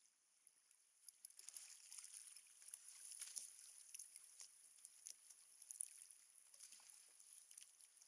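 Near silence: faint water lapping against a kayak, with scattered small splashes and ticks.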